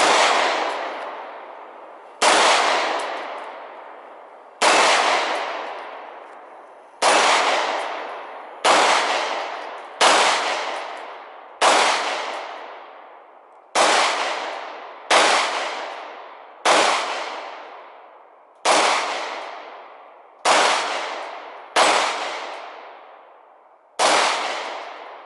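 Sig Sauer P226 Legion 9mm pistol fired at a slow, steady pace, about fifteen shots with one every one and a half to two and a half seconds. Each shot is a sharp crack followed by a long echoing tail that fades before the next.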